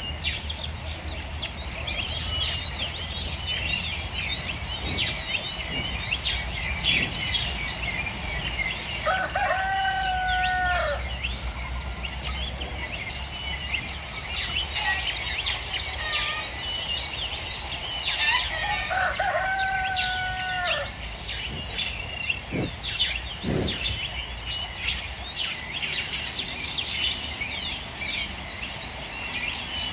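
A rooster crowing twice, each crow about two seconds long and about ten seconds apart, over continuous high chirping from many birds.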